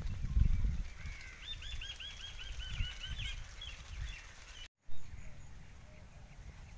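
A bird calling a quick run of about ten repeated chirps, lasting under two seconds, over low rumbling noise on the microphone that is loudest in the first second. The sound cuts out for an instant about two-thirds of the way through.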